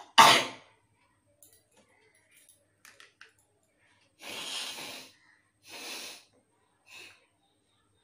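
A woman sneezes once, loudly, then blows her nose hard into a plastic cup while holding one nostril shut: two long forceful blows and a short third one near the end.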